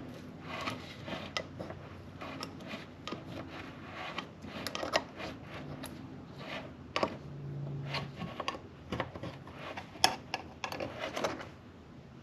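Irregular metallic clicks and scrapes as the tight press-on lid of a small G2 brake caliper paint can is worked loose around its rim.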